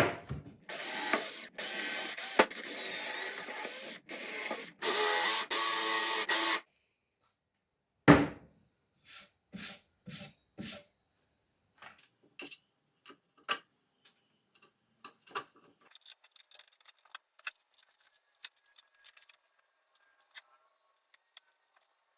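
Power drill running in several bursts over about six seconds, its pitch wavering as the trigger is worked. A single knock follows, then scattered small clicks and taps of parts being handled.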